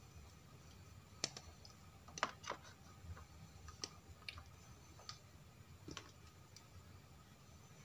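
Light clicks and taps of a hard plastic toy giraffe being handled and set down in a plastic tub, scattered irregularly, with the loudest pair about two seconds in, over a faint low hum.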